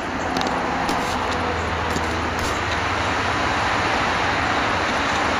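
Steady rushing background noise with a low hum underneath, rising slightly in level.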